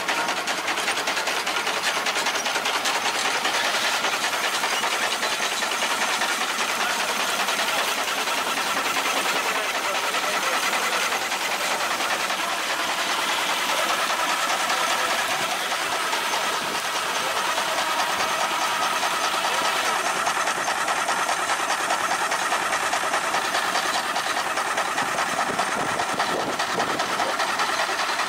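65-horsepower Case steam traction engine running steadily under belt load, driving a sawmill: a rapid, even exhaust beat with steady steam hiss.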